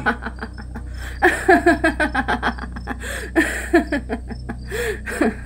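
A young woman's long run of laughter, many short high-pitched 'ha' pulses starting about a second in, over the steady chirring of crickets.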